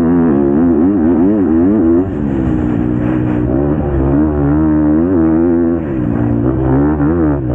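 Motocross bike engine heard close up from the rider's helmet at speed, revving up and down rapidly with the throttle. About two seconds in the pitch and level drop as the rider backs off, then climb again, with another brief dip near the end.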